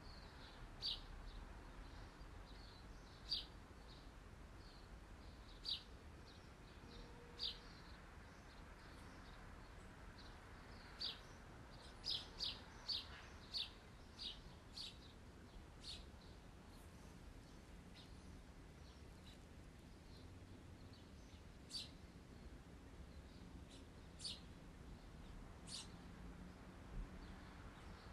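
Faint, short, high bird chirps over a low steady hiss. Single chirps come every second or two, with a quick run of several chirps around the middle.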